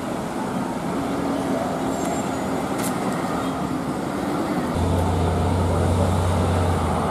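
Road traffic on a steep mountain road: cars and heavy trucks passing with their engines running. About two-thirds of the way through, a deep low rumble comes in and holds.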